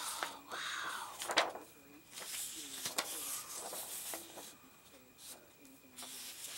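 Large sheets of scrapbooking paper rustling and sliding against each other as they are lifted and turned over by hand, with a few sharp paper crackles.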